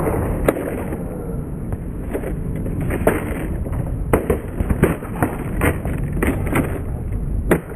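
Skateboard rolling on concrete, with about a dozen sharp clacks of the board and wheels striking the ground during flip tricks, bunched most closely in the second half and one loud clack near the end.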